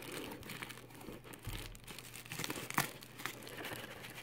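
Faint crinkling of bubble wrap and rubbing of cardboard packaging, with scattered small clicks, as a boxed vinyl figure is worked free of a snug shipping box.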